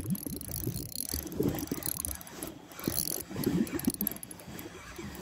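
Spinning reel cranked with an uneven mechanical rattle as a hooked fish is reeled in.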